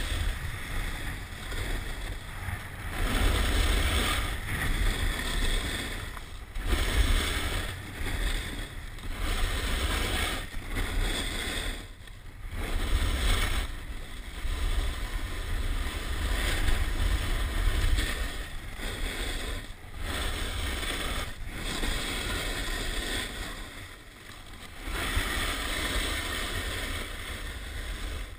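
Snowboard sliding and carving down packed snow, a scraping hiss that rises and falls every few seconds, with wind rumbling on the chest-mounted action camera's microphone.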